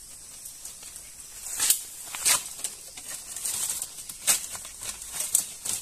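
Dry bamboo twigs and dead leaves crackling and rustling as someone pushes a hand and arm into a bamboo thicket, with a few sharp snaps and cracks scattered through it.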